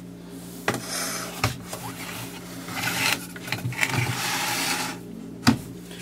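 Handling noise from a Mac Pro memory riser card tray being picked up and turned around: rubbing and scraping of plastic and metal with scattered clicks, and a sharp knock about five and a half seconds in.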